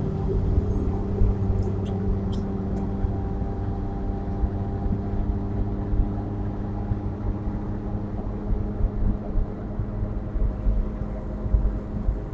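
Steady road and engine noise inside a 2016 Nissan Versa with its 1.6-litre four-cylinder engine, cruising at highway speed: a low rumble with a steady hum, and a few faint ticks about two seconds in.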